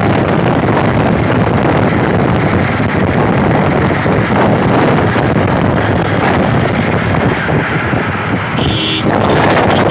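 Loud, steady wind buffeting the microphone on a moving vehicle, with the rush of travel underneath, easing slightly for a moment near the end.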